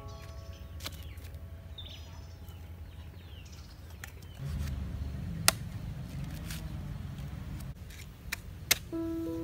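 A few sharp knocks: hollow fired-clay bricks set down against one another, then machete blows chopping into a green coconut near the end. Under them is a low steady rumble, with faint bird chirps about two seconds in.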